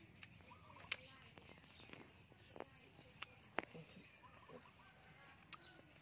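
Faint rural ambience: short, high, steady buzzing insect calls come and go through the first few seconds, with a few sharp clicks and faint chirps.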